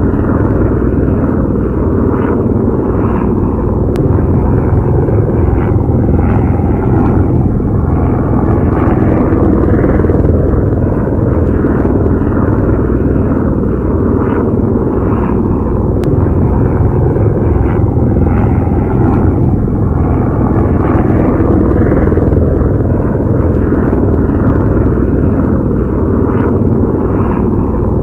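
Steady, loud, low rumbling noise with no clear rhythm, plus a faint steady hum underneath.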